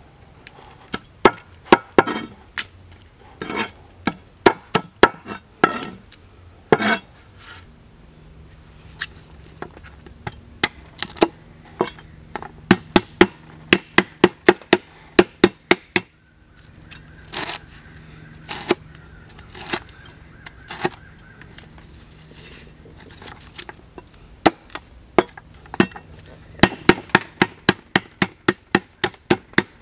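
A cleaver knocking on a wooden chopping board, first trimming prawns and then chopping lemongrass stalks. The strikes come one by one and unevenly at first, then speed up near the end into a fast, even run of about three to four chops a second.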